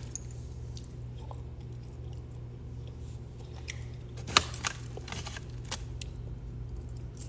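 Close-up chewing and small wet mouth clicks of a person eating rotisserie chicken, with one sharper click about four seconds in, over a steady low hum.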